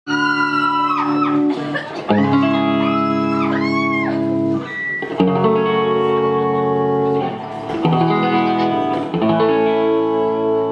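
Live band playing the intro of a song, led by guitar: sustained chords with sliding notes in the first few seconds, then held chords.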